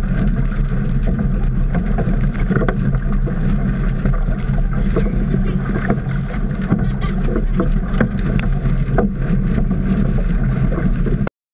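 Wind buffeting a GoPro in its waterproof housing on a sailing Optimist dinghy, giving a steady low rumble, with water rushing and splashing against the hull and slopping in the boat as it is bailed. The sound cuts off suddenly near the end.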